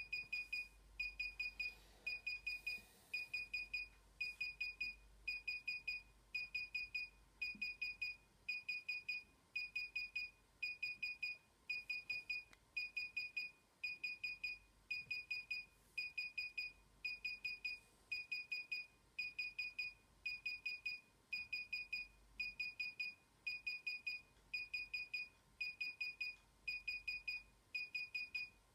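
DJI Inspire 1 remote controller beeping without pause while its firmware installs: a high-pitched beep in short clusters of rapid pulses, about three clusters every two seconds.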